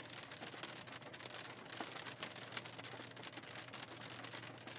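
Faint rain patter on a car: scattered light ticks over a steady hiss.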